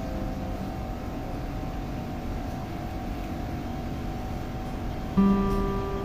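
Background music: a steady held tone, then a plucked acoustic guitar note that rings out suddenly about five seconds in.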